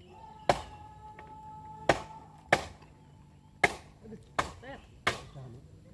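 Food being chopped with a knife on a cutting board: six sharp strokes at uneven spacing, roughly one a second.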